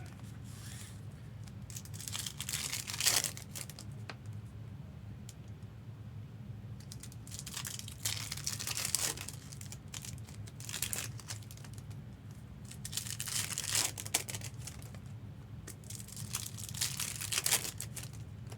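Crinkling of trading-card pack wrappers being handled, in about four separate bursts of a second or two each, over a steady low hum.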